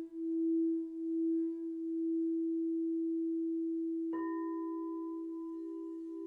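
Frosted quartz crystal singing bowls ringing: one bowl holds a steady low tone that wavers slowly in loudness, and about four seconds in a second bowl is struck, adding a higher tone and bright overtones that also pulse as the two ring together.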